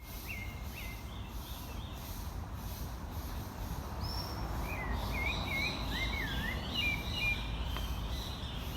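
Birds singing outdoors: short whistled chirps early on, then a livelier run of rising and falling whistled notes from about four seconds in, over steady low background noise.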